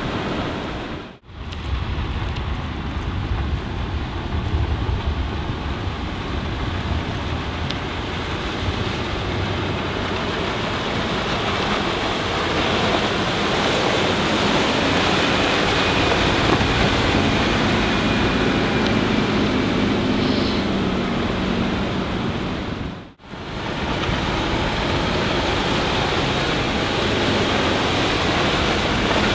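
A sports cruiser passing at planing speed: wind buffeting the microphone over a steady rush of water and wake, with a faint low drone from its Yanmar four-cylinder turbo diesel. The sound drops out for a moment twice, about a second in and again later in the pass.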